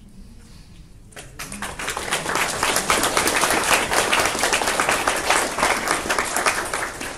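Audience applauding at the end of a poem: the clapping starts about a second in, swells, and dies away near the end.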